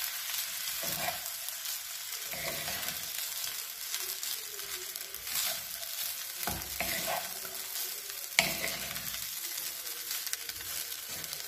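Wooden spatula stirring and scraping egg fried rice in a nonstick kadhai, over a steady sizzle of frying, with a sharp click about eight seconds in.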